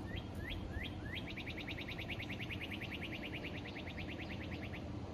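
A songbird singing: four separate rising notes, then a fast trill of about ten short rising notes a second that runs for roughly three and a half seconds and stops about a second before the end.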